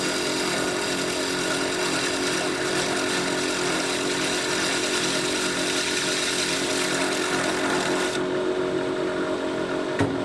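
Wood lathe running while a hand chisel takes very fine shavings off the inside of a stave drum shell, a steady hum under a hiss of cutting. The high hiss drops away about eight seconds in, leaving the lathe running, and a sharp click comes near the end.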